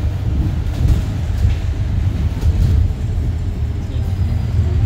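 Bus running along a road, heard from inside the passenger cabin: a steady low engine and road rumble with a few faint rattles.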